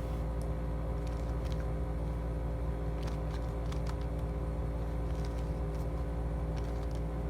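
A few faint clicks of a 2x2 Rubik's cube's layers being turned through an algorithm, over a steady low electrical-sounding hum.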